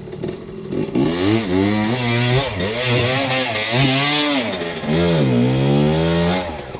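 Enduro dirt bike engine revving up and down under changing throttle, its pitch rising and falling repeatedly from about a second in, then dropping away near the end.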